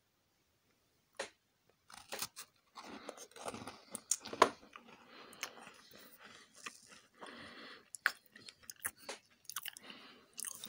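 A crunchy chocolate chip cookie being bitten and chewed. Irregular crunches begin about two seconds in, the sharpest crack comes about four seconds in, and then steady chewing follows.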